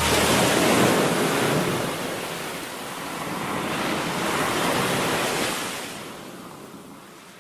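Ocean surf breaking and washing, swelling twice and then fading away near the end.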